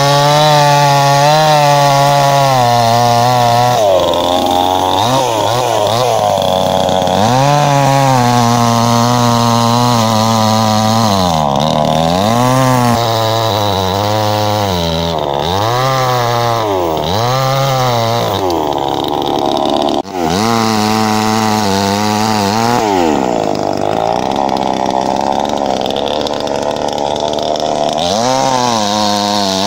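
Two-stroke petrol chainsaw cutting eucalyptus trunks. The engine note rises and falls over and over as it is throttled up and dragged down in the cut, with one brief drop about two-thirds of the way through.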